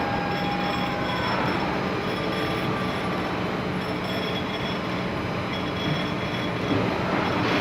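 Surface grinder running steadily: a dense, even grinding hiss over a low motor hum.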